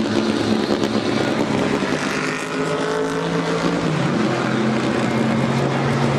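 Race car engines running steadily, with a drop in pitch about four seconds in.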